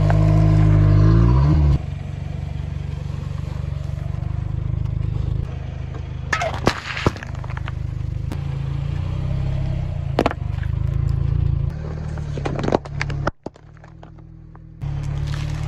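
Car engine running slowly as its tyres roll over and crush objects, with sharp cracks and crunches in bursts, a cluster about six to seven seconds in and more around ten and thirteen seconds.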